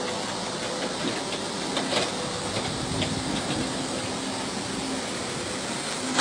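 Steady rushing noise of fast-flowing floodwater surging through a street, with a few faint clicks near the middle.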